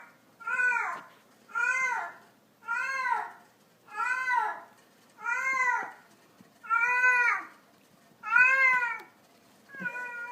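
Domestic cat meowing over and over, about eight meows at roughly one every second and a quarter, each rising and then falling in pitch.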